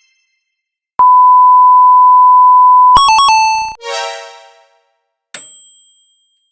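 A string of synthesized sound effects: a loud, steady electronic beep held for about two seconds, then a quick blip of a few stepped electronic notes, a fading chime, and a short ding near the end.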